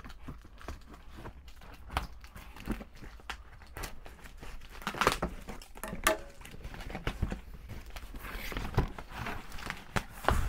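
Cardboard shoe box and its packaging being handled and worked open: crinkling, rustling and tearing with scattered light knocks, the loudest about five and six seconds in.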